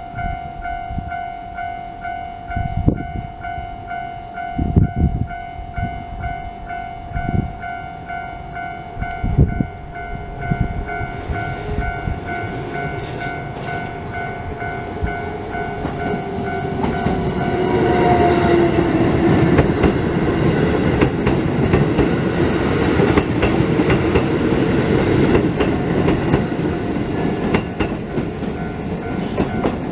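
Japanese level-crossing warning bell ringing in a steady repeating electronic ding, with a few low thumps in the first third. About halfway through a train arrives and runs over the crossing, its wheels clattering on the rails and louder than the bell, while a falling tone slides down briefly as it comes in.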